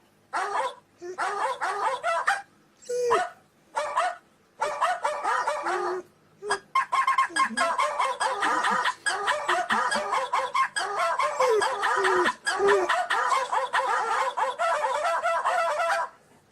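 Dog barking and calling, in short separate bursts with pauses, then nearly unbroken from about six seconds in for roughly ten seconds, a few calls sliding down in pitch.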